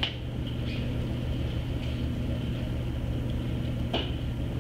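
Steady low room hum with two short clicks, one at the start and one about four seconds in.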